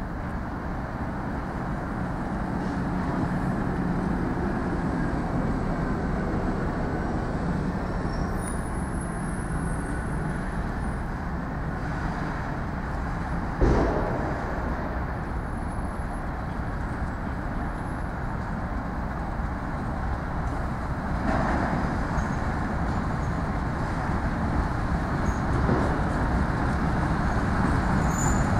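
TEM2M diesel shunting locomotive hauling a freight train slowly: steady diesel rumble and the grind of wheels on rail, growing gradually louder as it draws nearer. A single sharp clunk about halfway through.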